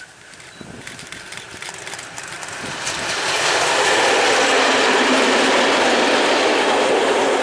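Diesel locomotive hauling a tank wagon approaches and passes close by. Its engine and rolling noise grow louder over the first three seconds or so, stay loud while it goes past, and begin to fade near the end.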